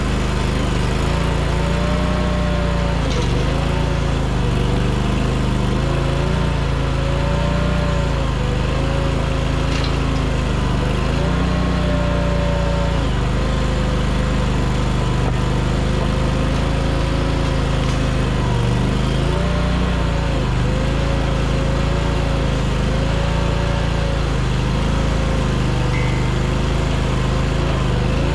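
Mini skid steer's engine running hard to drive a hydraulic flail mower through brush. Its pitch sags and recovers every few seconds as it works.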